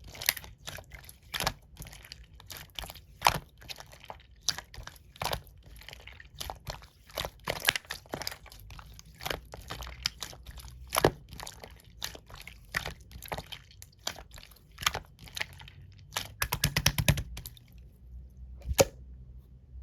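Clear green slime being worked by hand, giving off irregular sharp clicks and pops of trapped air, with a quick run of pops about seventeen seconds in and one last pop near the end.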